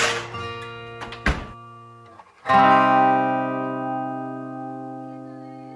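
Background music: acoustic guitar chords strummed and left to ring out and fade, with a new chord about two and a half seconds in. A short knock about a second in.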